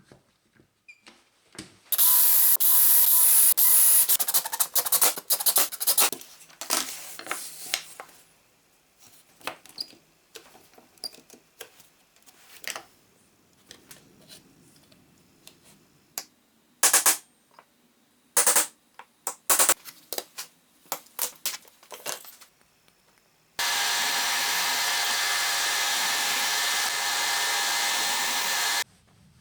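Handheld power tool run in short stop-start bursts while working wood, followed by knocks and clicks of parts being handled, two brief bursts, and a steady run of about five seconds near the end.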